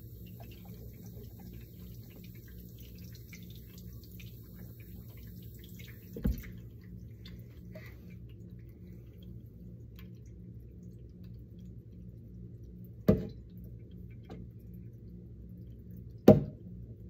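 Water dripping and trickling faintly into a small plastic case held over a stainless-steel sink, over a steady low hum. Three sharp knocks come at intervals, the last two the loudest.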